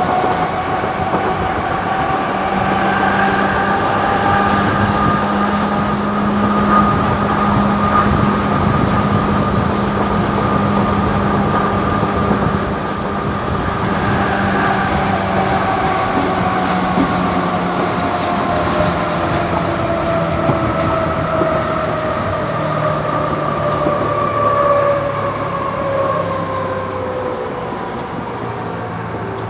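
Hamburg U-Bahn DT3-E train 875 running on the track, its traction drive whining in several tones at once over rail noise. The whine climbs in pitch at the start and sinks slowly through the second half as the train slows.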